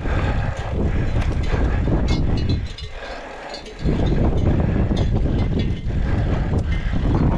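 Mountain bike descending a rough trail: wind buffeting the microphone over steady rattling and knocking of the bike and tyres on stony ground. The noise drops away for about a second midway, then returns.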